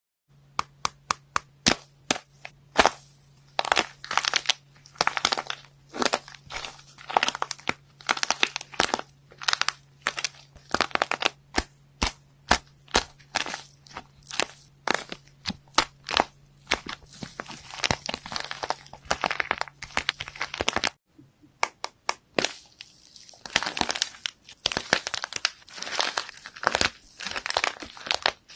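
Slime being pressed and worked by hand, giving a dense run of sharp pops and crackling clicks, with a brief break about three-quarters through.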